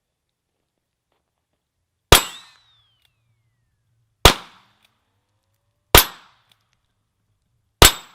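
A .22 Ruger Single Six revolver fired four times, roughly two seconds apart, each a sharp crack with a short echo tail. A falling whine trails the first shot.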